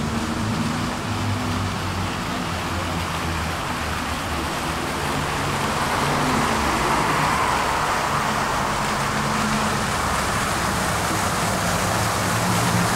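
Tram running on its rails: steady wheel-on-rail rolling noise with the hum of the electric traction motors, whose pitch wavers and fades. Near the end the motor hum starts to climb as the tram gathers speed.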